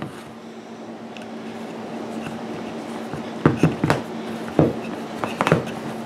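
Handling noise: a few light knocks and clunks in the second half as a small wooden box and an extension cord are moved about on a concrete floor, over a faint steady hum.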